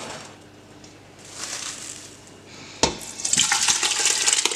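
A sharp knock a little under three seconds in, then sliced strawberries and their released syrup being poured from a metal bowl into a stainless steel pot, splashing and plopping with many small wet clicks.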